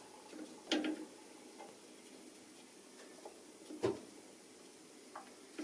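A few light clicks and knocks of Jerusalem artichoke slices being pushed into place in a frying pan. Two louder ones come just under a second in and about four seconds in, with fainter clicks between.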